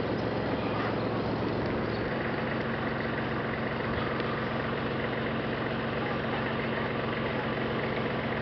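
Steady low mechanical hum under an even rushing noise, its tone shifting slightly about two seconds in.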